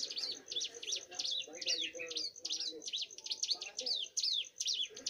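Young prenjak gunung, a mountain prinia, singing nonstop: a fast, unbroken run of sharp, downward-sweeping chirps, about four or five a second.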